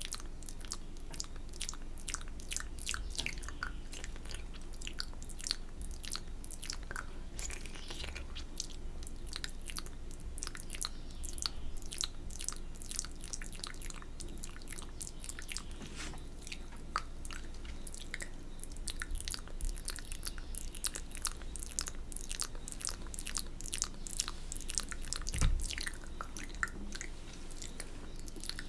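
Close-miked wet mouth sounds of ASMR spit painting: a dense run of sharp saliva clicks, smacks and licks. One low thump near the end is the loudest sound.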